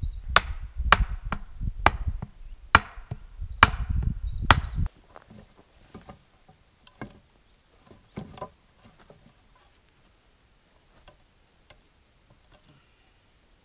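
Hard wooden blows, six strikes about a second apart, as wood is struck or chopped. These stop suddenly about five seconds in, followed by scattered light knocks of logs being laid onto a stacked log wall.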